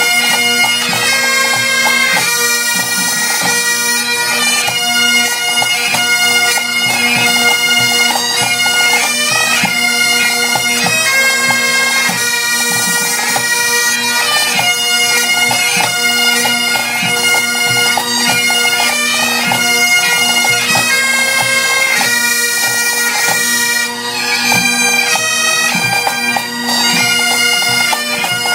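Bagpipe music: a melody played over a steady, unbroken drone.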